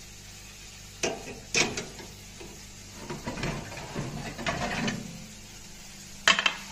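Metal baking tray gripped with a tray lifter and slid out of an electric oven-toaster-grill. Two sharp metal clanks come about a second in, then irregular rattling and scraping of the tray against the rack, and another clank near the end.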